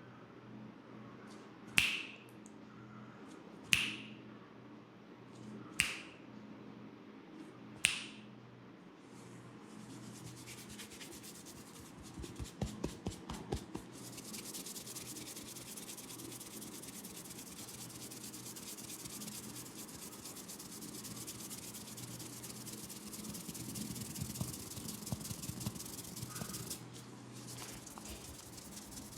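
Four sharp finger snaps, one every two seconds. From about ten seconds in they give way to a steady hissing rub of hands working through hair over the scalp, with a few light crackles around twelve seconds in. A faint low hum runs underneath.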